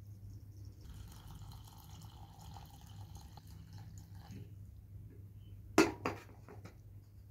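Water poured from a kettle into a metal bowl for about three and a half seconds, splashing into the bowl. It is followed a second or so later by two sharp clunks, close together, as the kettle is set down.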